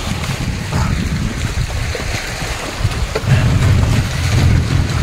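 Small open boat under way on a lake with its outboard motor running, mostly covered by low wind buffeting on the microphone, which grows louder about three seconds in.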